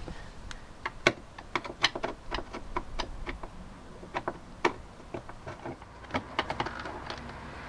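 Irregular clicks and scrapes of a screwdriver turning crosshead screws out of a Land Rover Discovery 2's plastic door trim panel.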